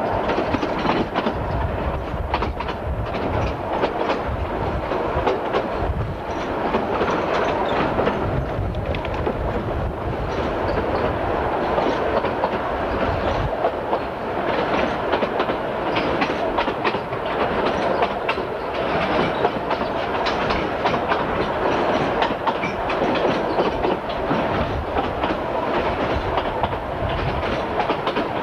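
Narrow-gauge railway carriage running at speed on jointed track: a steady rumble of wheels on rail with repeated clickety-clack over the rail joints.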